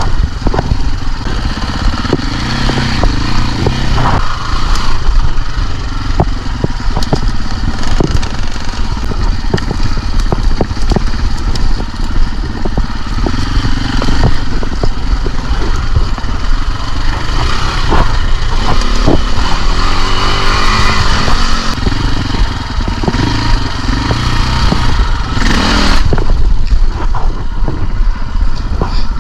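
KTM enduro dirt bike engine running and revving up and down on a rough trail, with frequent short knocks and clatter.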